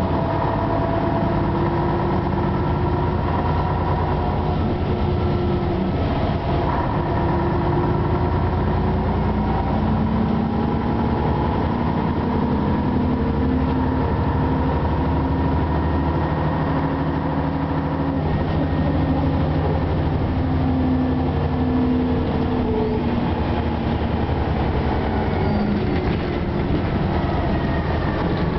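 Inside an Ikarus 260 city bus under way: the Rába-MAN six-cylinder diesel engine and drivetrain running over road rumble, their pitch slowly rising and falling with speed.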